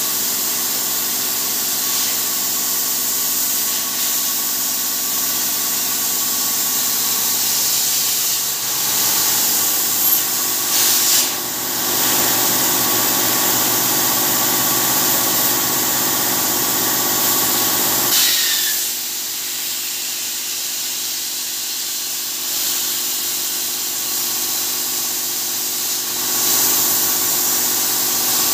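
CNC plasma cutter's torch cutting steel sheet: a loud, steady hiss of the plasma arc and gas. The sound thins out about two-thirds of the way through and builds up again near the end, as the arc stops and starts between cut-outs.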